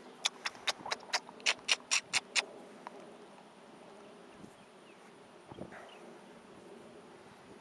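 A hand scratching a horse's coat: about ten quick rasping strokes, about four a second, over the first two and a half seconds. After that there is only a faint steady insect buzz.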